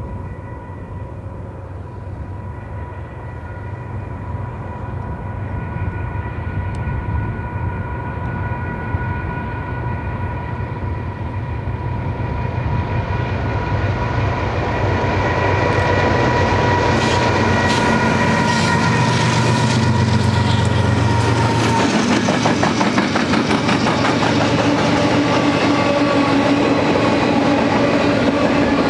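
GE ET44C4 diesel locomotive (GEVO-12 V12 engine) approaching and passing under power: a low rumble with a steady whine that grows louder and stops about two-thirds of the way through. Then the clickety-clack and rattle of empty intermodal well cars rolling over the rail joints.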